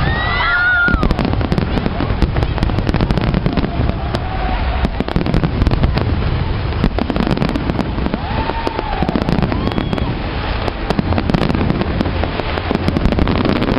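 Aerial fireworks display going off in a dense, continuous barrage: rapid overlapping bangs and crackling bursts over a steady low rumble.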